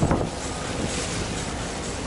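Wind buffeting the microphone over the rush of the sea around a sailing yacht in a strong headwind, with a gust right at the start before the noise settles into a steady rush.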